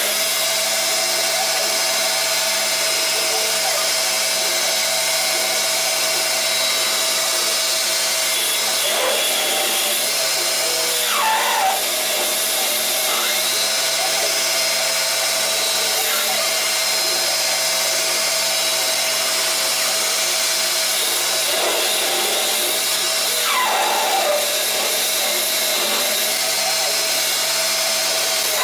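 CNC lathe turning a metal bar with a carbide insert: a steady machine whine over a continuous hiss, with a few brief falling pitch sweeps.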